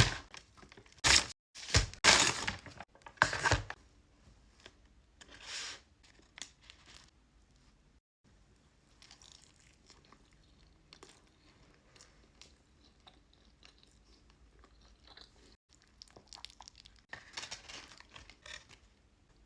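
Close-miked fast-food eating: paper wrapping and bags being handled and torn, with several loud rustles in the first four seconds and another burst near the end, and quieter crunchy chewing in between.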